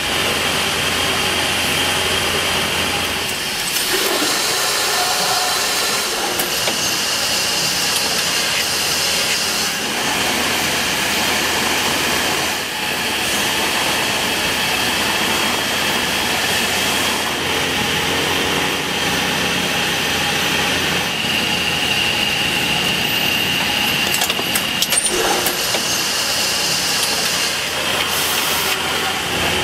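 Steady din of textile machinery running in a yarn-processing mill, with a continuous high whine over the noise and a few sharp clicks late on.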